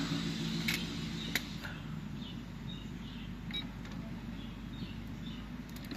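Victor UX-Z11WMD MiniDisc deck: a low mechanical hum from its drive fades out about a second in, then a few sharp clicks as the MiniDisc is handled in the slot. The deck is failing to read the disc.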